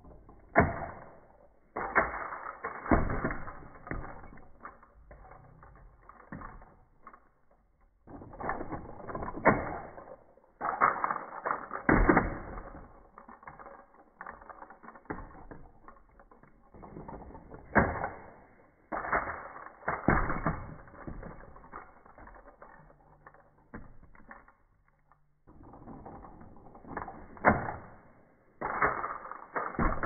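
Plastic clicking and clattering of a Turning Mecard Prince Kong toy car as its spring-loaded panels flip open and it transforms into a gorilla robot, in a series of separate bursts with short quiet gaps between.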